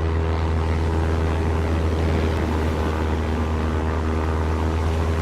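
American truck's engine running steadily, a constant low drone with an even hum that neither rises nor falls.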